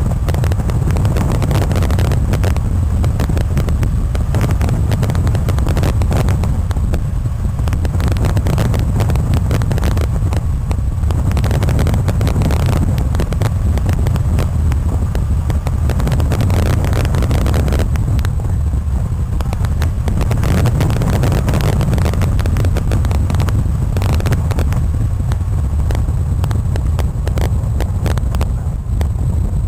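Wind rushing over the microphone of a camera mounted on a tandem hang glider's wing in flight: a loud, steady low rumble with rapid buffeting.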